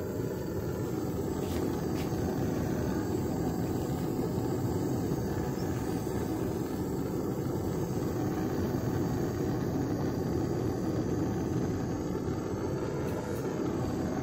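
Brass hand torch, converted from a butane-canister fitting to run off a hose from a 3 kg LPG cylinder, burning with a low, steady rushing sound of gas and flame.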